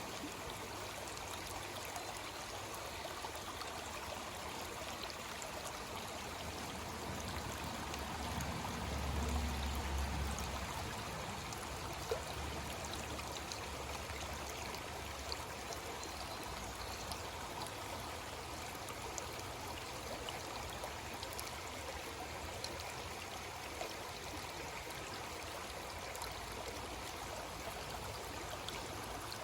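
Creek water flowing steadily, a continuous rushing and trickling. A low rumble swells briefly about nine seconds in.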